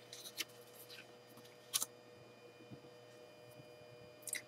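Faint paper-handling noises as a written sheet is swapped for a blank one: a few soft rustles and a sharp click a little under two seconds in, then a brief felt-tip marker stroke on paper near the end, over a faint steady hum.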